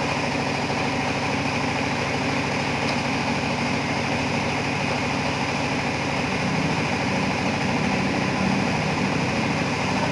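A machine motor running steadily at an even pitch and level, with a fast fine vibration.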